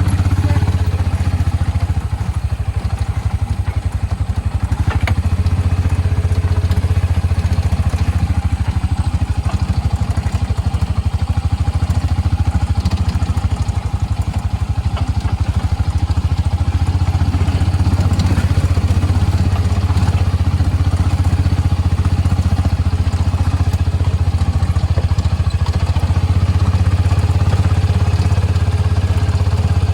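Engine of a small off-road vehicle running steadily while it drives along.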